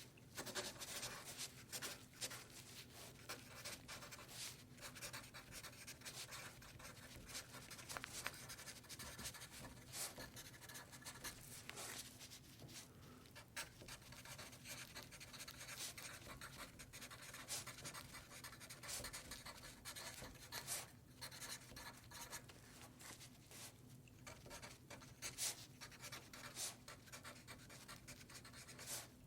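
Pen writing on paper: a continuous dry scratching, broken by many small irregular ticks and brief pauses as strokes begin and end, over a faint low steady hum.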